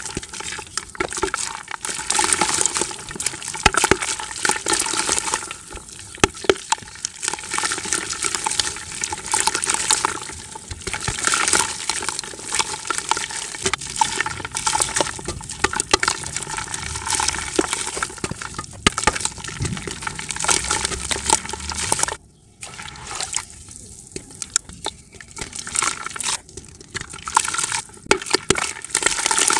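Chunks of dry clay dirt crumbling and crunching in the hands, with many small cracks, as crumbs and dust fall into a bucket of water below. The crumbling stops briefly about three quarters of the way through, then goes on more softly.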